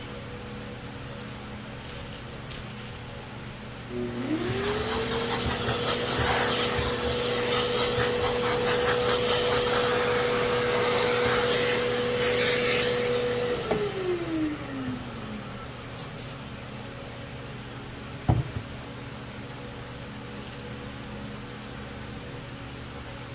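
An electric motor spins up about four seconds in, runs steadily with a rushing hiss of air for about nine seconds, then winds down in falling pitch as it coasts to a stop. A single sharp knock comes near the end.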